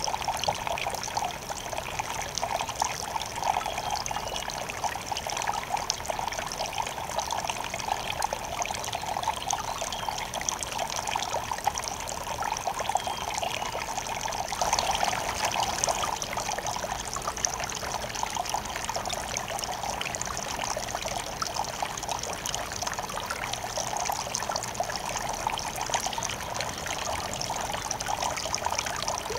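Small garden fountain, water trickling and splashing steadily over rocks and terracotta pots.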